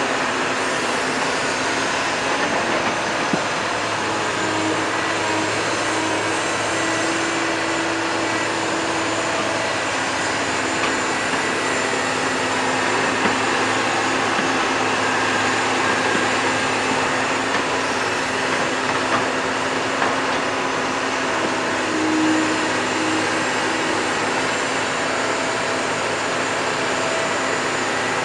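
Komatsu PC200 hydraulic excavator working: its diesel engine and hydraulics run steadily with a constant hum and whine, the tones shifting a little now and then as it digs and swings loads of soil into a dump truck.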